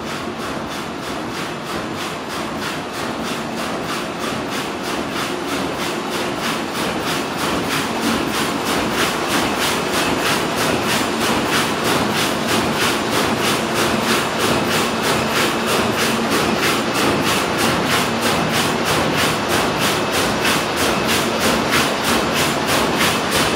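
Van de Wiele VTR33 carpet weaving loom running at speed: a fast, even mechanical clatter of about four to five beats a second from its weaving cycle. It grows louder through the first half, then holds steady.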